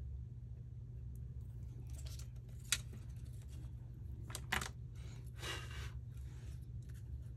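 Paper-craft work on a table: a few light clicks and taps of tools or pieces being handled, and a short paper rustle about two-thirds of the way through, over a steady low hum.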